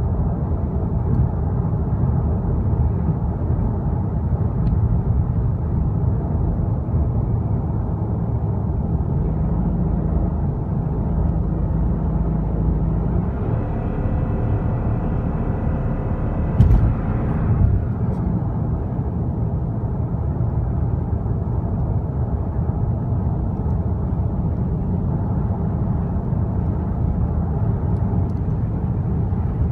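Cabin noise of a 2013 Lexus GS350 at highway speed: its 3.5-litre V6 engine is misfiring, and engine and road noise run on steadily. About halfway through, a steady tone sounds for about four seconds, and a single sharp knock comes near its end.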